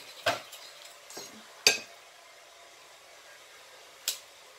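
Kitchenware clinks and knocks as a glass mixing bowl and a metal flan mold are handled to pour batter: three sharp knocks in the first two seconds and a lighter, higher click about four seconds in.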